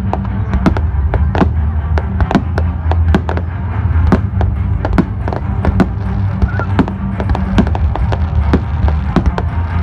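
Fireworks going off: a rapid, irregular string of sharp cracks and bangs, several a second, over a steady low rumble.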